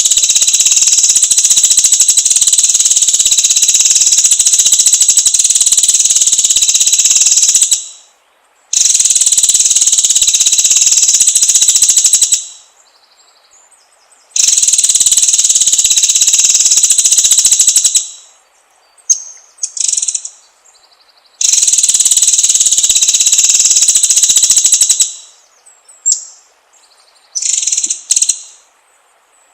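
Loud, high-pitched steady buzzing in four long bursts of several seconds each that start and stop abruptly, with a few short chirps in the gaps between them.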